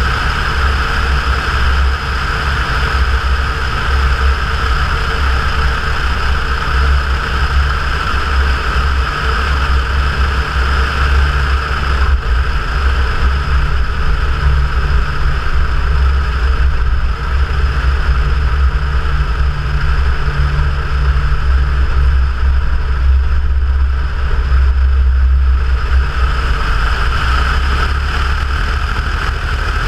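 Cessna 172's piston engine and propeller droning steadily at a constant power setting in flight.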